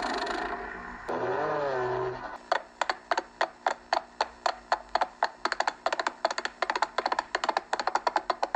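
Cartoon Foley sound effects: a brief hiss, then a short wavering warble that bends up and down, then a long run of sharp taps, about five a second, quickening in the middle.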